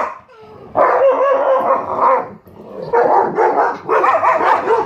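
Pet dogs barking and howling excitedly in two long runs, with a short break about two and a half seconds in.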